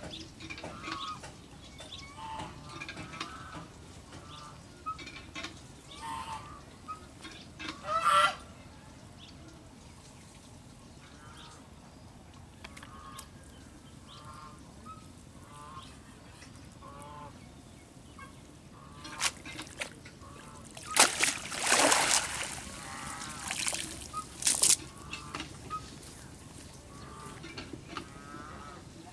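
Domestic fowl calling over and over in short honks and clucks, like geese and chickens. Louder rushing, noisy bursts come about eight seconds in and again about three-quarters of the way through.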